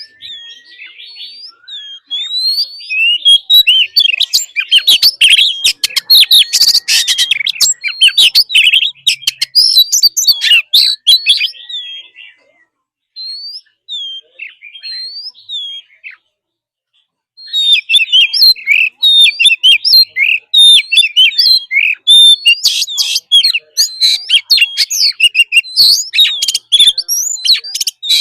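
Oriental magpie-robin singing a loud, rapid, varied song of whistled and chattering notes. The song breaks off for a few seconds midway, with only a few scattered notes, then resumes just as dense.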